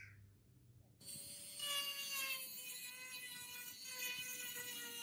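Hand-held rotary tool with a sanding drum starting up about a second in and running: a steady high motor whine, drifting slowly lower, over the hiss of abrasive grinding on the steel of the hammer's eye.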